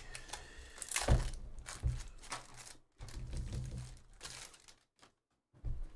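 Gold foil card-pack wrapper crinkling as it is torn open and the cards are slid out, in a run of irregular bursts that stop about five seconds in.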